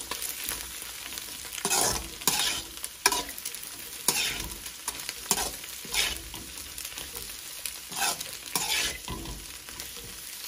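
Vegetables and scrambled egg stir-frying in hot oil in a metal kadai: a steady sizzle, with a metal spatula scraping and tossing against the pan about once a second.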